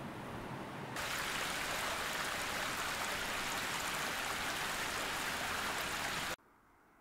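Steady rush of flowing water from a mountain stream. It starts abruptly about a second in and cuts off sharply near the end. Before it there is a softer, lower rumble.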